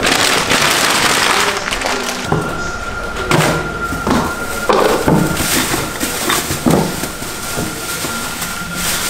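A paper bag crumpled in the hands, then a plastic bin liner rustling as it is handled and gathered up, with a few short knocks.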